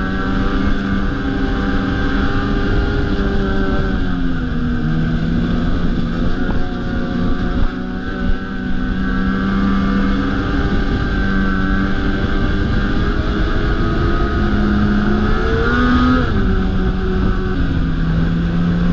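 Ski-Doo snowmobile engine running under way on the trail, heard close up from the rider's seat as a steady drone. Its pitch drops about four seconds in, climbs briefly around sixteen seconds, then falls back as the throttle eases.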